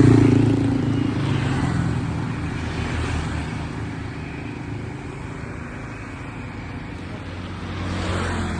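A motor vehicle's engine running steadily, loudest at the start, easing off, then swelling again near the end.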